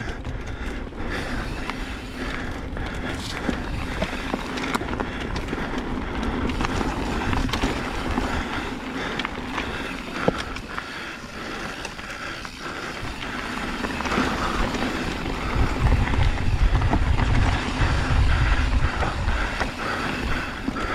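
Mountain bike riding down a dirt trail: steady tyre noise on the dirt with scattered knocks and rattles, and wind buffeting the microphone, which turns into a heavy rumble about fifteen seconds in.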